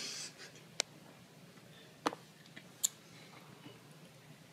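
Quiet room tone broken by three short, sharp clicks spread across a couple of seconds.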